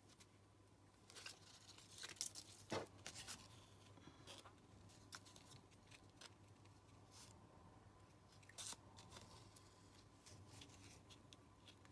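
Faint, scattered ticks and rustles of hand-stitching through paper: a needle poking through layered paper scraps and thread being drawn through. A low steady hum lies underneath.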